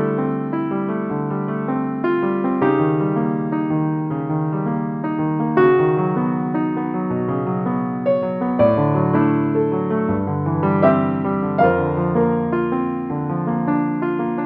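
Background piano music, slow sustained chords and melody notes with a soft attack, each note ringing on.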